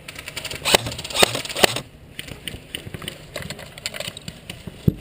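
Airsoft guns firing: three sharp cracks about half a second apart around a second in, then another single crack near the end, with lighter clicks and rattles in between.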